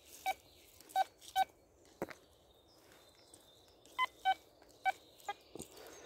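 Quest Q20 metal detector sounding off over a buried target: about seven short, irregular beeps, a couple of them a little higher in pitch. The signal is unsteady, its target ID wavering around 76–77.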